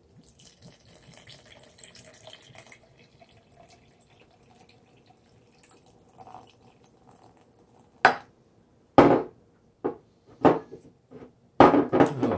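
Red wine vinegar poured from a bottle into a glass jar of herbs, trickling faintly with a thin tone that fades after about three seconds. From about eight seconds in come several sharp clicks and knocks, the loudest sounds here, as bottles and their flip-top caps are handled and set on the table.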